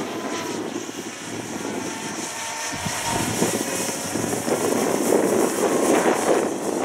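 Electric motors and propellers of a radio-controlled Cessna 336 Skymaster model on its landing approach, a thin whine that rises and falls in pitch with the throttle. Wind buffeting the microphone grows louder in the second half.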